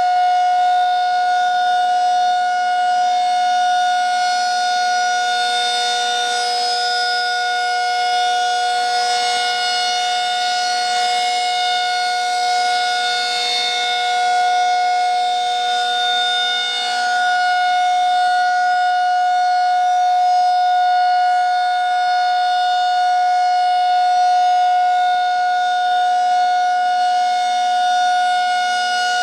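Federal Signal 2001-SRN civil defense siren sounding a steady alert signal: a loud, unwavering tone held at one pitch without wailing, swelling and fading slightly in loudness as the rotating horn sweeps around.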